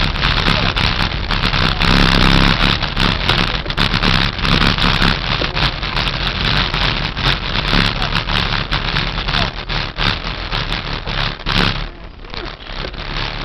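Wind rushing over the microphone of a camera mounted on a moving road bicycle, with road rumble and many small knocks and rattles from the mount. It eases briefly near the end.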